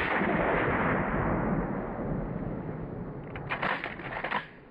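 The tail of a 12-gauge Mossberg 500 shotgun slug shot rolling off and fading over about two seconds. Near the end, a quick run of metallic clacks as the pump action is worked to eject the spent shell.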